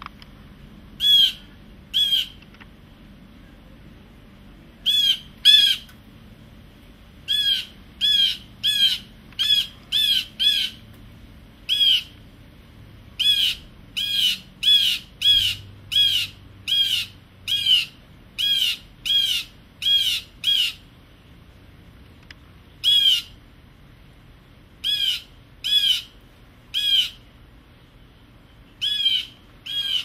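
Blue jay giving about thirty harsh 'jay' jeer calls in bouts of two to eight, with short pauses between bouts. This is the scolding alarm call blue jays use to mob a predator such as a cat.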